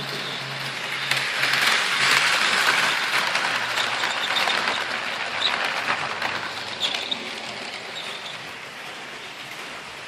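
Hornby OO-gauge model locomotive and coaches running on the track: a steady rolling rattle with small clicks over the rail joints. It grows louder about a second in as the train passes close, then fades away.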